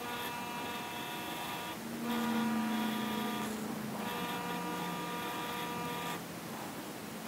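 Powered bead roller's motor whining in three runs of about two seconds with short stops between, as its rollers press a bead into steel exhaust tubing.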